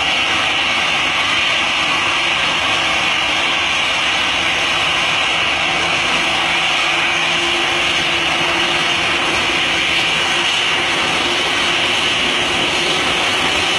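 Four jet engines of a taxiing Airbus A340 running at low taxi power: a steady whine and rushing hiss that holds level throughout.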